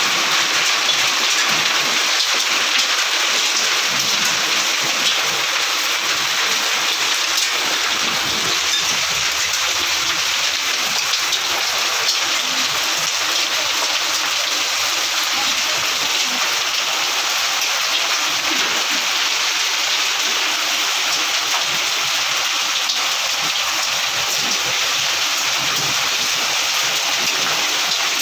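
Hailstorm: heavy rain mixed with hailstones pelting a brick-paved courtyard, a steady dense hiss flecked with tiny ticks of impacts.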